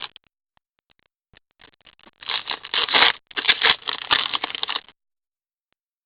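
Trading cards and their pack wrapper being handled: a run of rapid crinkling and scraping that starts about a second and a half in and stops suddenly after about three seconds.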